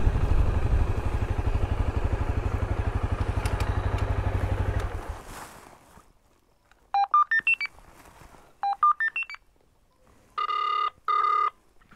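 Honda CRF250L's single-cylinder engine idling, dying away about five seconds in. Then a gate intercom gives two quick runs of short beeps at changing pitches, followed by two ringing buzzes as the call to reception goes through.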